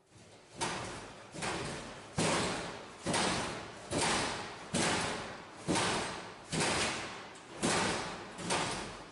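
A loud bang about once a second, roughly ten in all, from the bank of school lockers. Each bang is followed by a rattling echo down the tiled corridor that dies away before the next.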